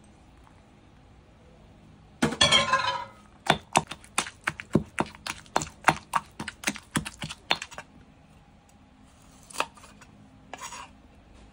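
Granite pestle pounding pea eggplants into shrimp-paste chili dip in a granite mortar: a short clattering burst, then a run of sharp knocks at about four a second lasting a few seconds. Near the end, a knife cuts through limes onto a wooden chopping board.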